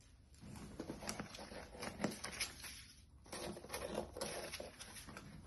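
Packages being handled during an unboxing count: irregular clicks, knocks and rustles, with a short lull about three seconds in.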